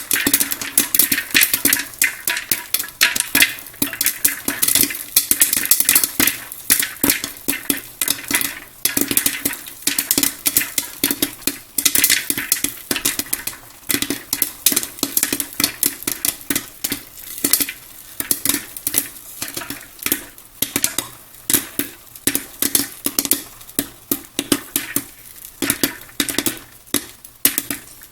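Popcorn kernels popping inside an electric stirring popcorn popper: a rapid, irregular crackle of many pops a second over the steady low hum of the popper's motor.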